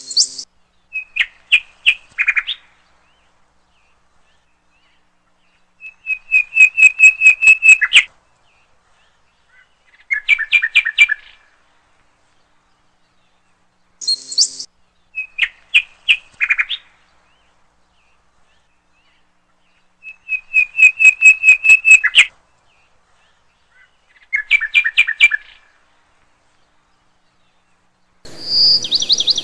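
Animal calls: bursts of rapid, high-pitched chirping notes, each burst one to two seconds long, the same sequence of bursts repeating about halfway through. Near the end a different, noisier sound with a high whistle-like tone begins.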